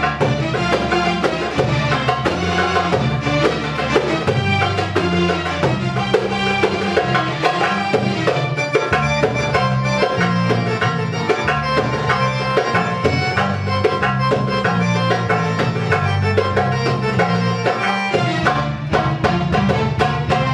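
Live Middle Eastern instrumental music: a darbuka played with fast, dense strokes under a Korg synthesizer keyboard carrying the melody over a stepping bass line.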